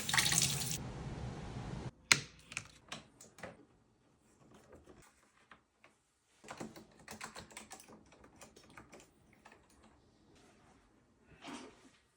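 A tap runs briefly and cuts off abruptly. Then come scattered clicks and clatters of plastic keyboard parts, such as keycaps and the case, being handled during cleaning.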